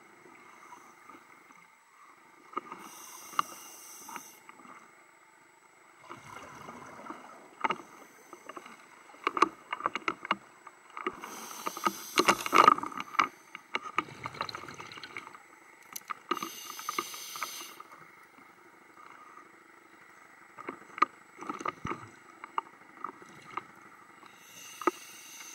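Scuba diver breathing underwater through a regulator: a few hissing breaths with bubbling exhalations, the loudest a little before the middle. Scattered short clicks and knocks run throughout.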